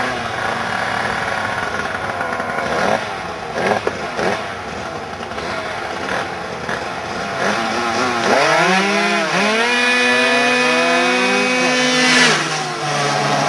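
Two-stroke engines of a 70 cc kitted Yamaha Aerox scooter and an Aprilia RS 125 racing toward the camera at full throttle. From about eight seconds in the engine note revs up sharply, climbing steeply in pitch. It is loudest as they pass close by about twelve seconds in, then falls lower.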